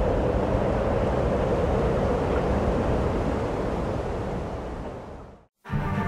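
Steady rushing noise that fades out about five seconds in, followed half a second later by music starting.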